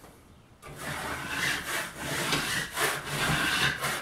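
Steel putty knife scraping water-softened texture off a drywall ceiling in repeated rasping strokes, starting about half a second in.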